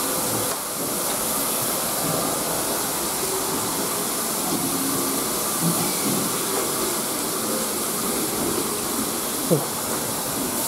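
Steady steam hiss from the standing Urie S15 class 4-6-0 steam locomotive No. 506. A brief falling sound cuts in near the end.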